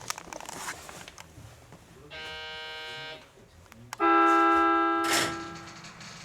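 E233-series electric train's horn: a quieter, higher steady tone for about a second, then a loud, lower blast about four seconds in that lasts about a second and then fades, given as the train prepares to pull away again after its emergency stop.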